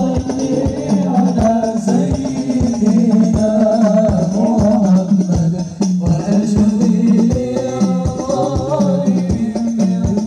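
Sholawat music played through a large outdoor PA system: a steady beat of hand-played frame drums with jingling tambourine-like percussion under sung devotional chant.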